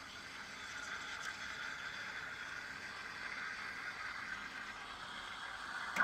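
Quick Mill Rubino's steam wand texturing milk in a small stainless steel jug: a steady, soft hiss with the tip submerged and the milk spinning. This is the texturing stage, after the foam has been stretched to volume.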